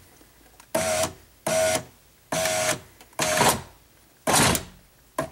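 Power window motor in a 2005 Chrysler Town & Country's driver's door, newly fitted with a replacement regulator, whining in five short bursts of about half a second each as the switch is tapped. The regulator is being inched up to engage the window glass.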